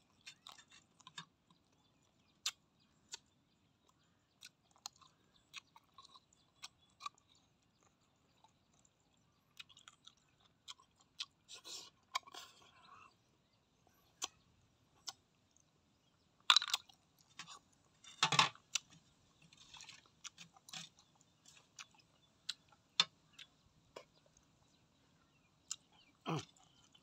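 Close-up eating sounds: a person chewing and smacking lips over cooked snails, with sharp mouth clicks throughout and a few loud sucking slurps, about 12, 16 and 18 seconds in, as snail meat is sucked out of the shell.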